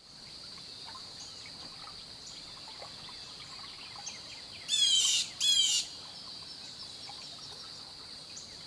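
A steady high-pitched drone of insects, with faint scattered chirps behind it. About five seconds in a bird gives two loud, quick calls in a row, each a fast run of short falling notes.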